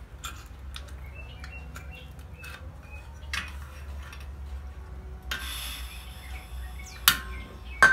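Small metallic clicks and clinks of a portable butane camping stove being handled as the gas canister is seated and the folding pot supports are swung out, with a brief hiss a little past the midpoint and two sharp metal snaps near the end, the last one ringing briefly. Birds chirp faintly in the background.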